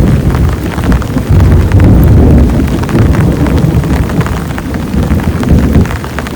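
Heavy rain beating down in a thunderstorm: a dense patter of sharp drop hits over a loud, deep rumble that swells and ebbs.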